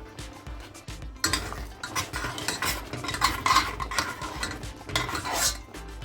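A spoon stirring and scraping around a cooking pot, starting about a second in and stopping shortly before the end.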